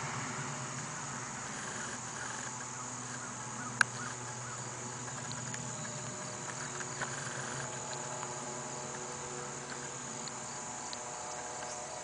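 Insects chirring in a steady high-pitched drone, with a steady low hum beneath. One sharp click comes about four seconds in.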